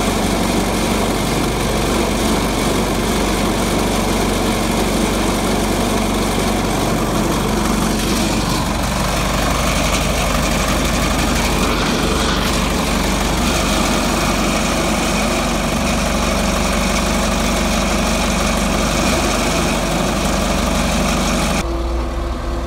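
Cummins diesel engine of a Case combine running steadily, just restarted on its freshly rebuilt VE injection pump. About a second before the end it becomes duller, heard from inside the cab.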